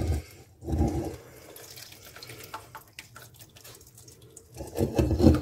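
Pasta water pouring out of a tilted pot through a clip-on silicone strainer and splashing into the sink, louder near the start and again near the end.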